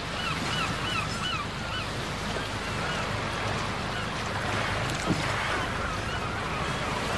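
A motorboat under way on a river: water rushing and splashing along the hull over a steady low engine hum. In the first couple of seconds a bird calls a quick string of short, repeated notes.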